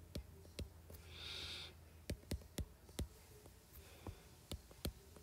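Stylus tapping and stroking on a tablet's glass screen while writing by hand: a string of irregular faint sharp clicks, with a short soft hiss about a second in. A low steady hum runs underneath.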